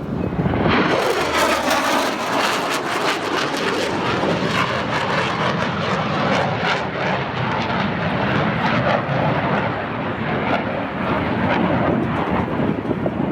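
Boeing C-17 Globemaster III's four turbofan jet engines, loud and steady, coming in sharply about a second in and holding on.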